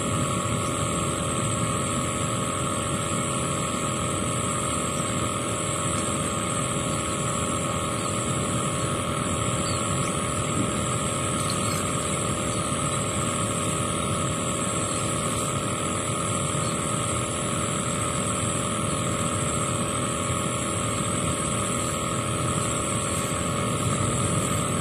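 Steady drone of a running engine or motor, even in level throughout, with a constant hum of several fixed tones.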